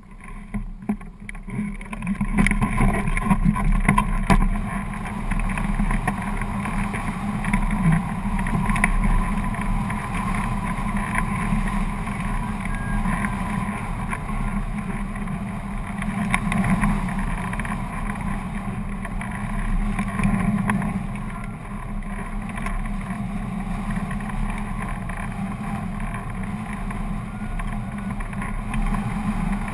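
Rushing wind on the hang glider's microphone as it launches and flies: the rush builds over the first couple of seconds as the glider gains speed, then holds as a loud, steady rumble.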